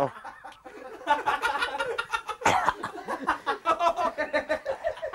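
A group of people laughing heartily, starting about a second in after a short lull.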